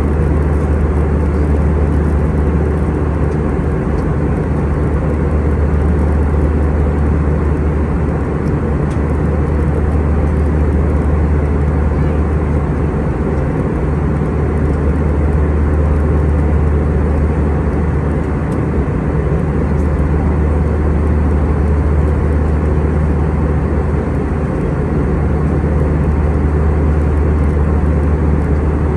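Steady cabin noise inside an Airbus A320-232 airliner: a low, even drone from its IAE V2500 engines with a rush of air over it, unchanging throughout.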